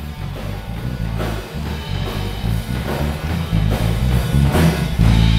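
Live rock band playing without vocals: drum kit hits over a moving electric bass line and guitar, settling into a held low note about five seconds in.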